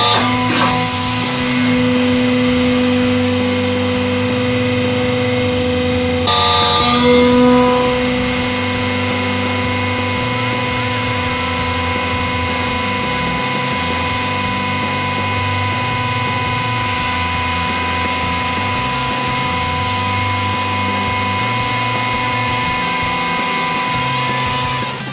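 A 100-ton hydraulic press's pump and motor running with a steady hum, with two short bursts of hiss, about a second in and again around six seconds in, while the press squeezes a football and then raises its ram.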